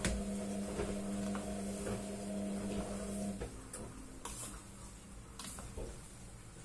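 Spatula scraping and tossing noodles in a stainless steel pot, with scattered clicks and scrapes against the metal. A steady hum runs underneath and stops about three and a half seconds in.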